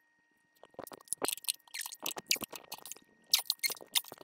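Irregular metallic clicks and clinks of a four-way lug wrench being fitted to and worked on the ball joint flange bolts of a VW Super Beetle's front suspension, starting about half a second in.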